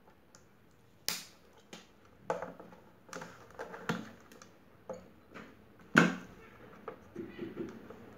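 Irregular clicks and knocks of hands and tools handling a sandwich maker's plastic housing, the sharpest about a second in and about six seconds in.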